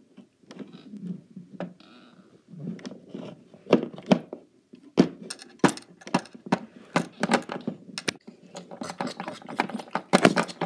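Handling noise of small hard toys and the phone: a quick, irregular run of clicks, taps and light rattles, busier from about halfway through.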